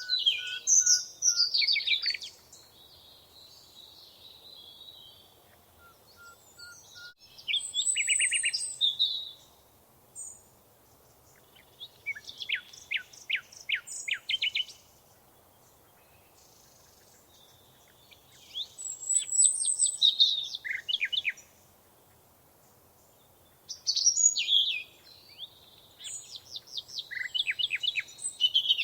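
Songbirds singing in short bursts of fast trilled and chirped notes, about six phrases with quiet gaps of a few seconds between them, over a faint background hiss.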